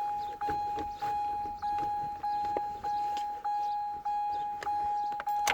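Car's electronic warning chime beeping steadily, one even tone repeating roughly every 0.6 s with short gaps, as the ignition is switched on with the driver's door open.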